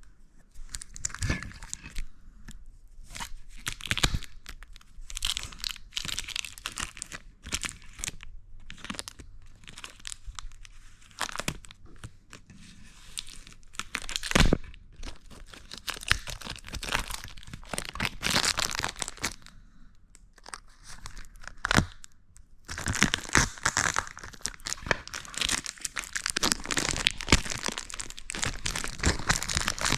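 Packaging being torn and crinkled open by hand, with scattered sharp clicks and knocks; the crinkling grows dense and continuous in the last several seconds.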